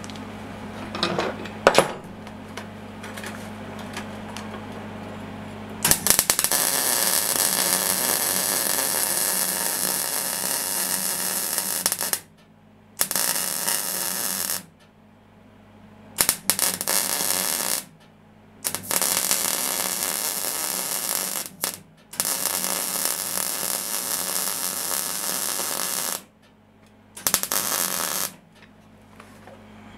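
MIG welding arc crackling and frying in several runs of a few seconds each, the first starting about six seconds in, with short pauses between them. Before the first run there is only a steady electrical hum and a few light clicks.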